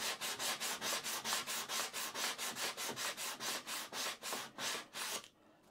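Hand-sanding a curved wooden edge with 240-grit sandpaper wrapped around a round handle. Quick, even back-and-forth strokes come about five a second and stop about five seconds in, as the edge is smoothed.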